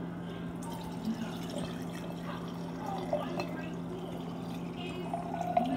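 Red wine poured from a bottle into a glass jar over large ice cubes, a steady pour with small splashes.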